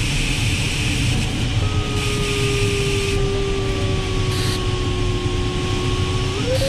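Steady airflow noise in a sailplane cockpit, with the electronic variometer coming in about a second and a half in as one continuous tone that slowly falls in pitch, then rises near the end. Its pitch follows the glider's rate of climb or sink.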